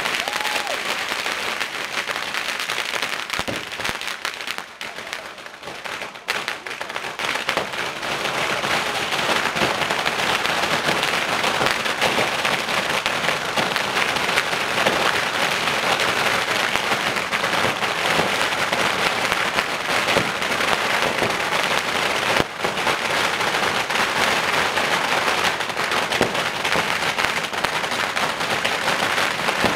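Rapid, continuous crackle of firecrackers and fireworks going off in a burning devil effigy as it throws out sparks. There is a short lull about five seconds in, and then the crackle runs on thick and steady.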